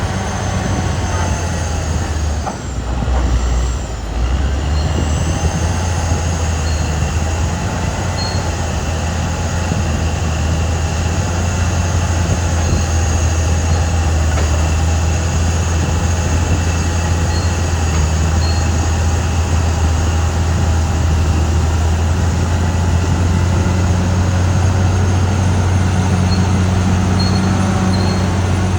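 Caterpillar D6R XL track-type bulldozer working, its diesel engine running steadily and loudly, with a faint high whine above the low engine drone.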